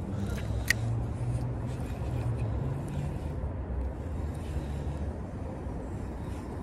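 A steady low outdoor rumble runs throughout. About a second in comes one sharp click from the spinning reel as its bail is snapped shut after the cast.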